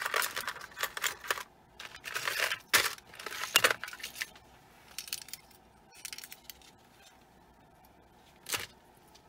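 Rustling and handling noise close to the microphone: a busy run of scraping, crinkling bursts over the first four seconds, a few fainter ones after, and one short rustle near the end.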